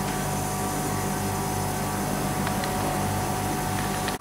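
Refrigeration condensing unit running steadily: the compressor's mains hum with the condenser fan, a constant drone with a faint steady whine.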